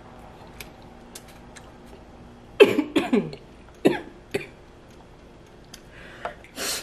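Close-miked eating sounds from a mouthful of barbecue beans: a loud throaty vocal sound a little past halfway into the first half, then a few wet mouth clicks and smacks, with a short hissy breath near the end.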